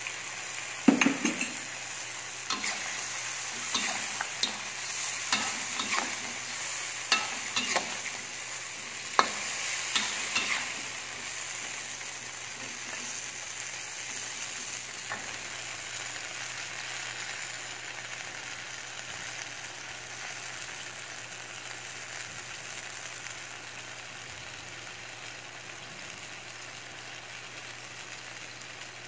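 Chicken feet and mushrooms sizzling in a wok while a metal spatula scrapes and knocks against the pan about a dozen times in the first ten seconds. After that, only a steady sizzle.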